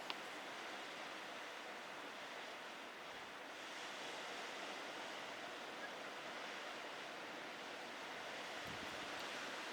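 Steady rushing of ocean surf.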